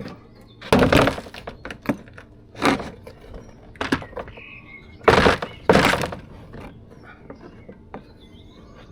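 Plastic side skirt being prised and pulled off a BMW Z4: about five loud cracks and knocks, with smaller clicks between them, as its clips let go.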